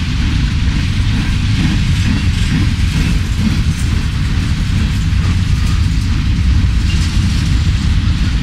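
Empty grain train of covered hopper cars rolling past close by: a steady, loud rumble of steel wheels on the rails.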